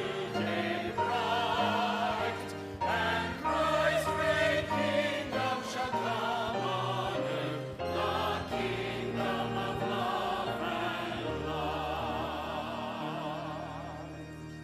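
Church choir singing with vibrato over a sustained accompaniment, ending on a long held chord that fades away near the end.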